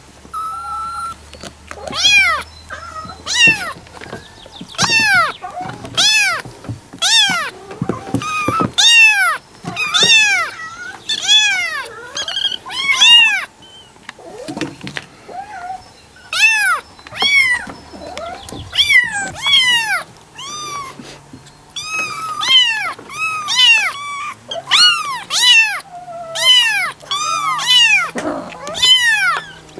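Kitten meowing over and over, a steady series of short high-pitched mews roughly one or two a second, each rising then falling in pitch, with a brief pause about halfway through.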